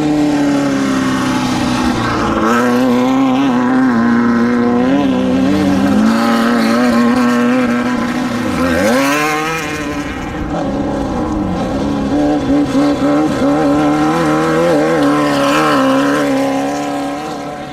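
Off-road desert race vehicle engines running hard and revving, with one vehicle passing close about nine seconds in, its pitch dropping sharply as it goes by.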